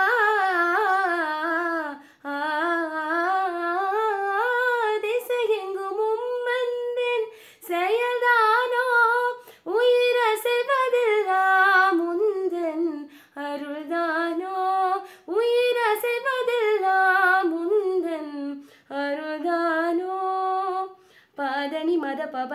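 A young woman singing a Christmas carol solo and unaccompanied, in melodic phrases broken by short breaths every few seconds.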